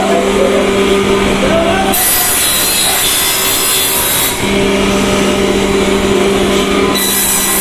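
Electric wood-cutting saw running with a steady motor hum, its blade cutting through firewood with a rasping hiss about two seconds in and again near the end.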